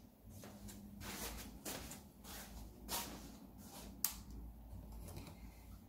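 Handling and rustling noises, then a single sharp click about four seconds in as a hand works the switch unit on the electric scooter's handlebar.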